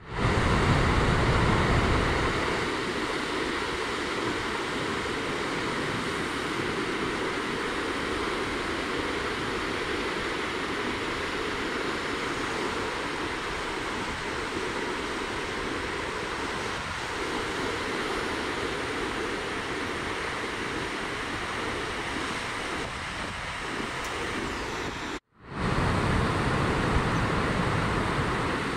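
Ocean surf breaking and washing ashore, a steady rush of waves. Wind rumbles on the microphone in the first couple of seconds and again near the end, and the sound cuts out for a moment a few seconds before the end.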